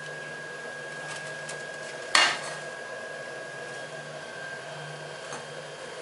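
A single sharp knock on an aluminium baking pan about two seconds in, with a brief ring, while batter is spread in it with a silicone spatula; a few faint light taps besides. A steady hum with a thin whine underlies it.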